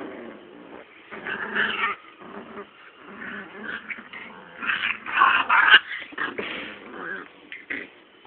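Two puppies play-fighting, growling and whining in short irregular bursts, loudest about five to six seconds in.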